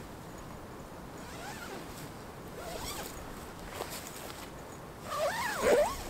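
A zip being pulled in short strokes, loudest near the end, over a quiet background hiss.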